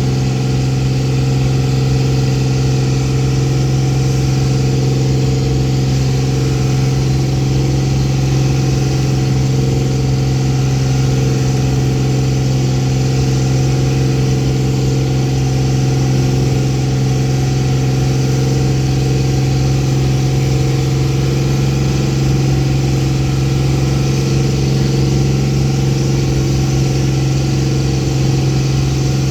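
Boat engine running steadily at an even speed, a loud low drone that does not change pitch.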